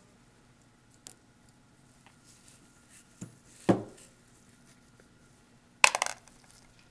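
Small light clicks and knocks of metal injection-pump parts being handled on a workbench, with a sharp louder clatter near the end as a clear plastic parts container is picked up and moved.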